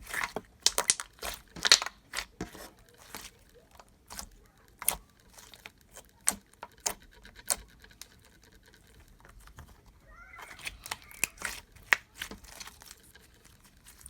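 Thick, glossy slime with soft clay mixed in, squished and stretched by hand, making irregular wet clicks and pops. The clicks come thickest in the first two seconds and again near the end.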